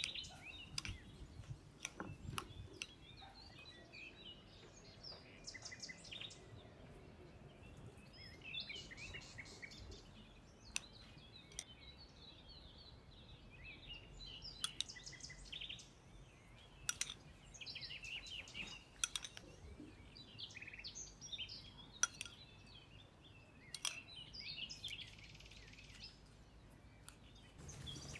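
A metal spoon clinks and scrapes now and then against a ceramic bowl and plate as a chunky, wet chopped-garlic and chili sauce is stirred and spooned out. Birds chirp throughout.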